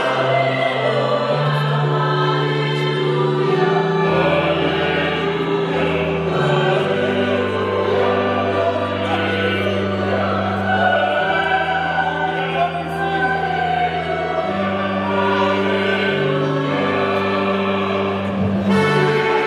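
Choir singing with instrumental accompaniment, the low notes held and changing every second or two.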